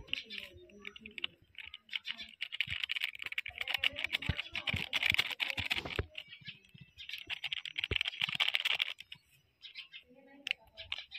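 Plastic spice packet crinkling and crackling as it is shaken and tipped, spilling spice powder into a steel bowl, in two long bouts of dense clicks.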